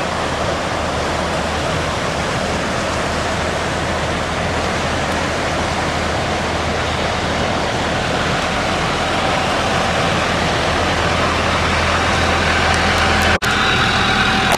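Steady rush of ocean surf breaking on a beach. Near the end a steady hum comes in, and the sound cuts out for an instant.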